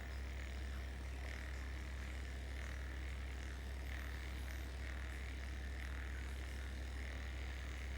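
Handheld vibration therapy device running on the jaw and mouth muscles, a steady low buzz.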